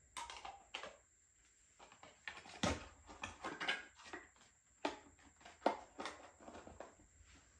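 Cosmetic jars and small cardboard product boxes being handled and set down among open shipping boxes: a string of irregular light taps, knocks and rustles.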